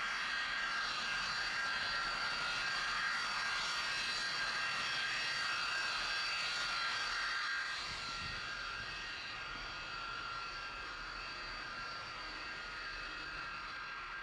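Jet engine of a railroad jet snowblower running with a steady high whine over a hiss, dropping slightly in level about eight seconds in.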